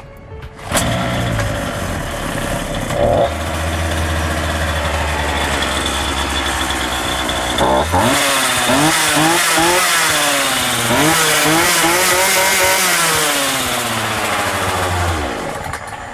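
Partner 350S chainsaw's small two-stroke engine starting about a second in, running a little fast for a couple of seconds, then idling steadily. From about halfway it is revved up and down several times, and it stops shortly before the end. This is a test run after the carburettor's low- and high-speed mixture screws were set two and a half turns out.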